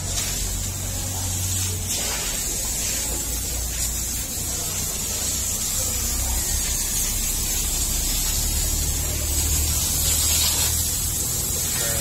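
Steady hissing noise over a low, steady hum.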